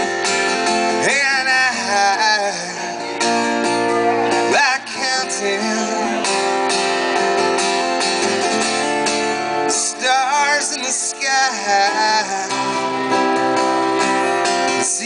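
Live Americana song on a strummed acoustic guitar, with a man's voice singing a phrase near the start and another about two-thirds of the way through.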